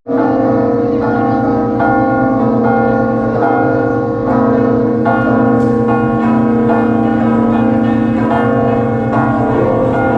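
Large church bells pealing: several bells struck in succession, about one strike a second, their tones overlapping and ringing on.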